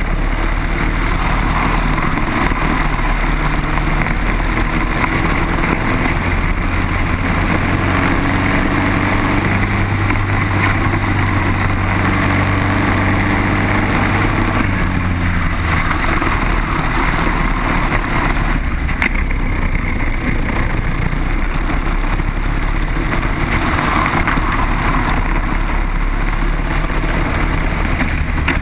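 Single-cylinder four-stroke Briggs & Stratton kart engine running at racing speed, heard from on board with wind rushing over the microphone. Its pitch climbs steadily through the middle along a straight, then drops about halfway through as the kart slows for a corner, and climbs again.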